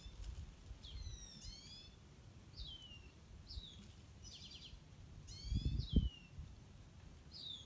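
Small songbirds calling in the trees: repeated short whistled notes that slide down in pitch, some in clusters of several at once, with a few rapid buzzy trills among them. A brief low rumble comes about six seconds in.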